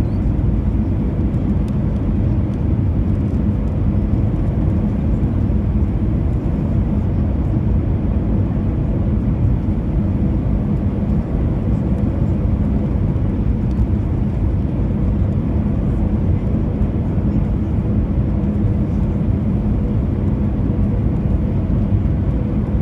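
Steady drone of an Airbus A320 heard inside the passenger cabin: engine and airflow noise, with a faint steady hum held throughout.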